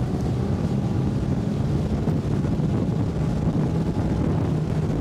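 Wind rushing over the microphone, with the steady drone of the Blazer Bay 2220 GTS bay boat's outboard motor and hull beneath it, during a high-speed run. The pitch holds steady throughout.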